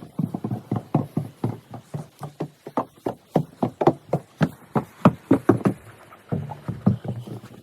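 Quick footsteps, about four a second, knocking on a hard floor, with a short pause a little after the middle.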